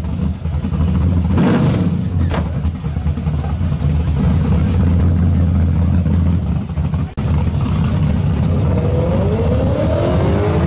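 Drag car's engine idling with a steady low rumble, blipped briefly twice in the first few seconds, and revved up and back down near the end.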